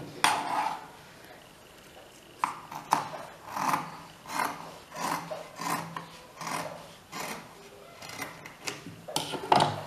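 Steel scissors snipping through thick black denim, a steady run of about a dozen short cuts, one or two a second, after a louder handling sound just after the start.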